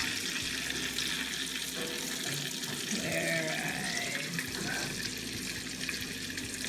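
Chicken strips frying in hot coconut oil, a steady sizzle.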